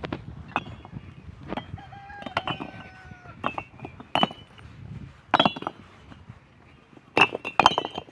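Irregular sharp clinks and scrapes of metal hand tools striking and shovelling broken stone aggregate, with a rooster crowing in the background, one long call about two seconds in.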